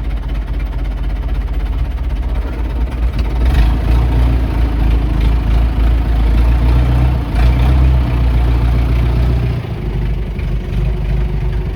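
Tractor diesel engine idling steadily with a deep rumble, swelling louder briefly twice and easing off a little near the end.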